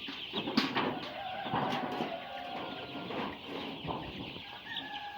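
A flock of Sonali super hybrid commercial chickens clucking and calling, a steady chatter of many birds with scattered short calls.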